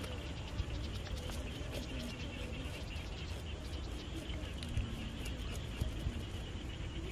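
Steady rural ambience of chirring insects with faint distant voices, and a few soft knocks and scrapes as a knife scales and cuts small fish on hard dry ground.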